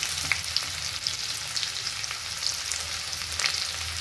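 Finely chopped onions frying in hot oil with crackled cumin seeds in a kadhai: a steady sizzle with scattered crackling pops, over a low steady hum.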